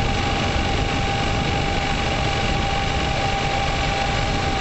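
Steady road and wind noise with engine hum, picked up by a vehicle-mounted camera travelling along a wet street. A thin, steady whine sits above it.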